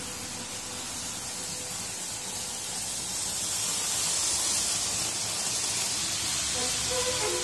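Märklin BR38 model steam locomotive and coaches running on metal model railway track, a steady hiss and rumble that grows louder about three to four seconds in as the train passes close. Orchestral music comes in near the end.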